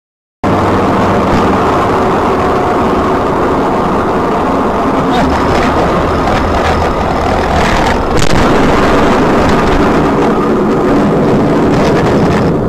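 Loud, steady motor-vehicle driving noise, engine hum and road rumble, starting abruptly about half a second in. A few sharp knocks come through it, the strongest about eight seconds in.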